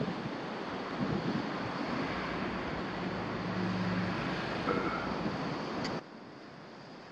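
Wind buffeting the microphone over a steady rush of sea surf, with a faint low hum in the middle. The noise drops abruptly to a quieter background about six seconds in.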